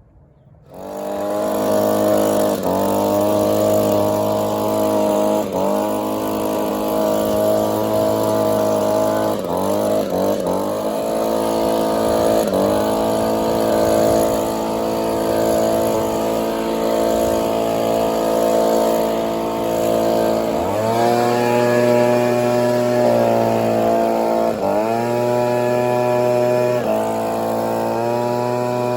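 Small gas engine of a handheld landscaping power tool running at high throttle. Its pitch dips and climbs back every few seconds as the throttle is eased and opened again.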